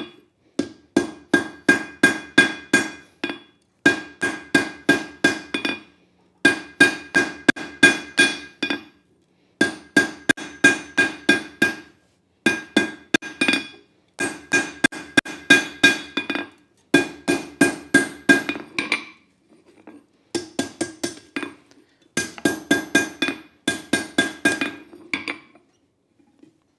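Hand hammer planishing red-hot leaf-spring steel on an anvil, each blow ringing. Quick runs of about five blows a second last two to three seconds each, with short pauses between them.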